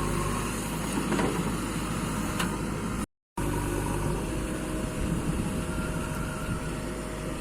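An engine running steadily with a low hum. The sound cuts out completely for a moment about three seconds in.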